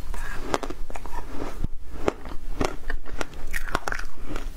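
Ice frozen from passion fruit juice being crunched between the teeth and chewed: a run of sharp, irregular cracks, several a second, picked up close by a clip-on microphone.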